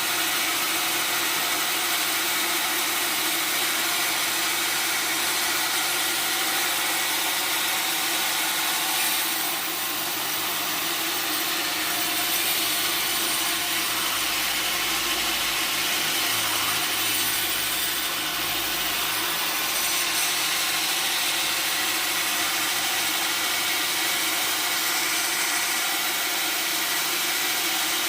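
Sawmill saw cutting steadily through a log: a continuous, loud, hissing rasp of the blade in the wood.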